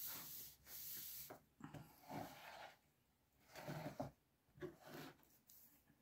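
Faint scratchy rustling of a paintbrush's bristles stroked over a shirt's fabric while bleach is painted on. The longest stroke comes in the first second or so, followed by a few shorter, softer ones.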